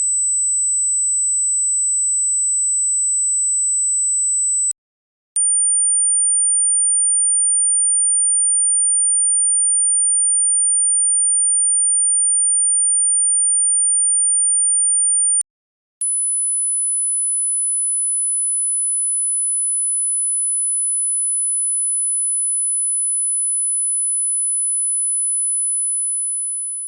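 Hearing-test tones: three steady, high-pitched pure sine tones, each a step higher than the last, separated by two short breaks. The last one fades out near the end.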